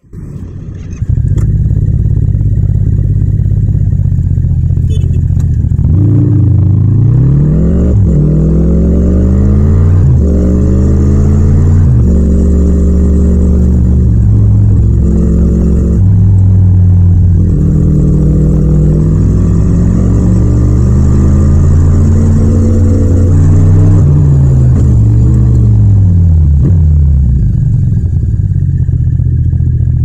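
Yamaha MT-07's 689 cc parallel-twin engine, heard raw with no wind noise, idling and then pulling away, revving up through several gear changes. It runs steadily, revs up once more, then slows back down to idle near the end.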